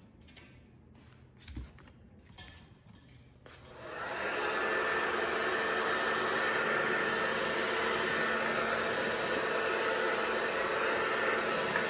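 Handheld hair dryer switched on about three and a half seconds in, spinning up within a second to a steady blowing rush with a faint steady whine, drying wet acrylic paint.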